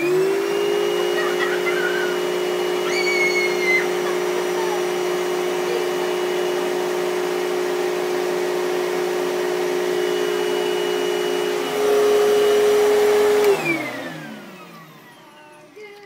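Vacuum cleaner switched on, its motor whining up to speed and then running steadily, a little louder about twelve seconds in. It is switched off shortly after and winds down in falling pitch.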